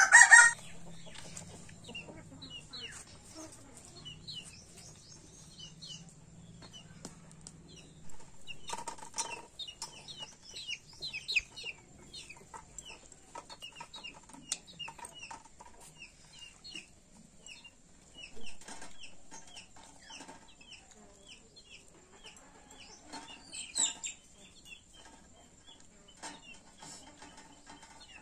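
Chickens clucking, with many short high chirps throughout and a brief loud burst right at the start.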